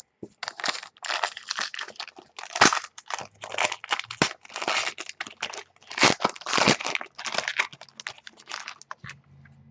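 Foil wrapper of a 2014 Panini Black Gold football card pack being torn open and crinkled, a long run of crackling rips.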